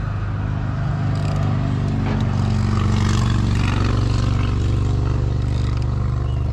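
A motor runs steadily with a low hum, while some scraping and clatter come and go over it.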